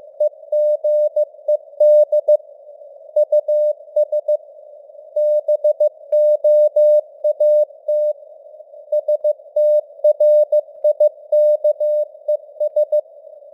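Morse code (CW) sent at 15 words per minute: a single steady mid-pitched tone keyed on and off in dots and dashes, over a narrow band of simulated radio hiss.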